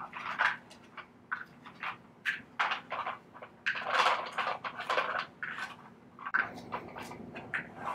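Dry pet treats crunching and clicking in quick, irregular snaps, thickest and loudest about four seconds in.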